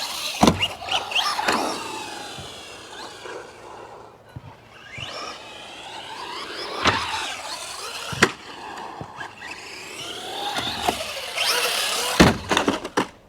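Brushless electric motor and drivetrain of a Remo Hobby EX3 1/10 RC short course truck whining up and down with the throttle, with several sharp knocks as the truck lands and takes hard hits, a cluster of them near the end.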